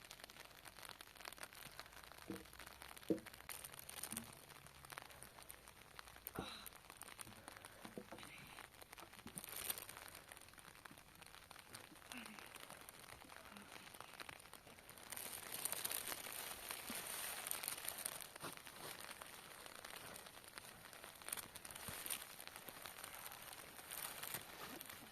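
Rustling and crinkling handling noises with scattered small knocks, growing busier from about halfway through.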